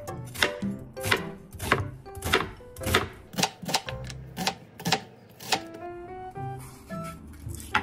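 A knife chopping on a cutting board in steady, even strokes, about three a second, stopping about two-thirds of the way through. Background music with a picked melody plays underneath and carries on after the chopping ends.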